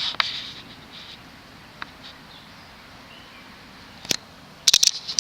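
Scattered sharp clicks and taps over a faint steady hiss: one about two seconds in, another about four seconds in, then a quick cluster of several clicks near the end.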